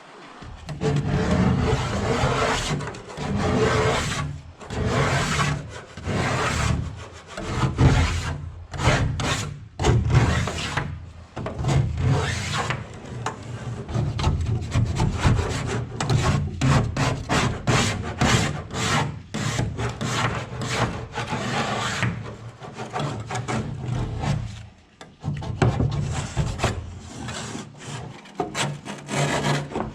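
Old paint, softened with chemical stripper, being scraped off a boat hull: repeated rasping strokes with short breaks between them.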